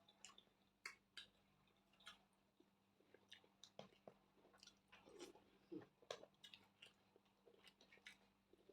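Faint, close-up sounds of a person chewing food: irregular soft clicks and wet mouth smacks, roughly one or two a second.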